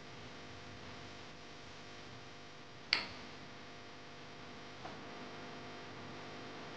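Faint steady hum with one sharp click of cookware knocking about three seconds in, and a softer tick near five seconds, as a nonstick pan of coconut oil is handled on the stove.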